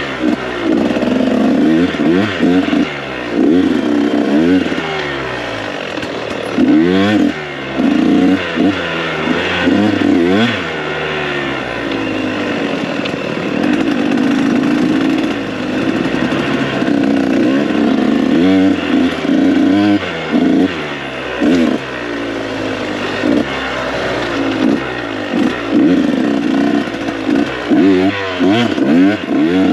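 KTM 125 SX two-stroke dirt bike engine being ridden hard, its pitch rising and falling again and again as the throttle is opened and closed and gears are changed.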